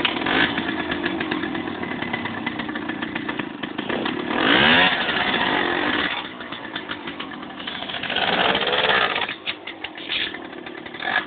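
Small two-stroke engine of a 1964 Zündapp EFS 220m moped running loudly and being revved, rising sharply in pitch about four seconds in and again later.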